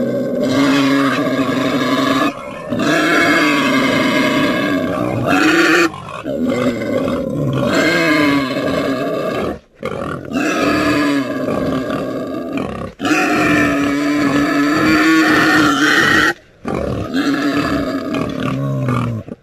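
A pig's long, drawn-out calls, one after another with brief sharp breaks between them, about six in all.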